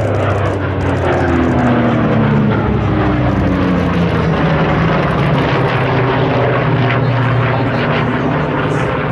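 Lockheed P-38 Lightning's twin Allison V-1710 V12 engines running under power as the fighter flies its display. The engine note slides lower over the first few seconds, then holds steady.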